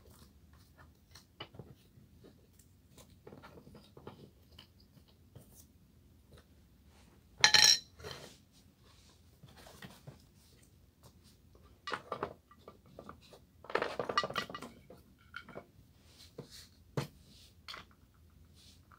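Scattered clinks and knocks of household objects being handled while tidying up, with a loud clatter about seven and a half seconds in and busier bursts of clattering around twelve and fourteen seconds.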